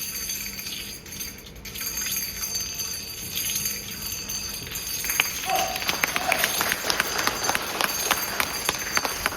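Sharp, dry clacks on a Chinese opera stage, sparse at first, then a dense irregular run from about halfway through. Two short low tones sound just after the clacks begin.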